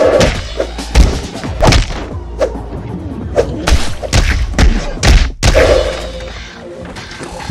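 Staged fist-fight punch and hit sound effects: a series of about nine heavy thuds, roughly one every half second to second, over background music, breaking off suddenly about five and a half seconds in.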